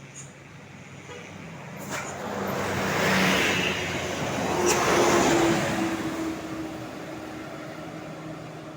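A road vehicle passing close by. The noise of its engine and tyres swells about two seconds in, is loudest around the middle, and fades away over the last few seconds.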